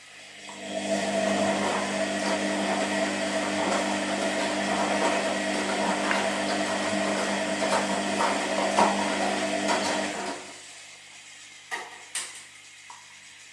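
Washing machine motor turning the drum for about ten seconds with a steady hum and swish, then stopping, as in the wash cycle's turn-and-pause rhythm. A couple of short knocks follow about a second later.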